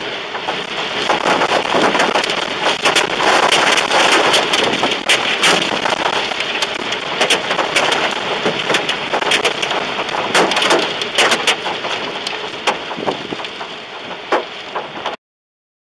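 Tornado winds driving rain against a car, heard from inside: a loud, steady rush with many sharp hits on the body and windshield. It cuts off suddenly near the end.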